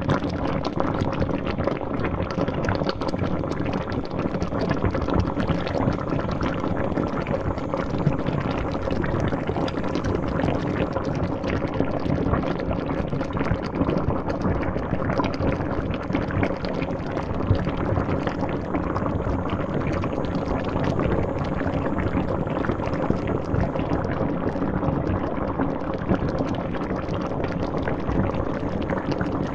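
A pot of liquid at a rolling boil: dense, continuous bubbling and popping, steady throughout.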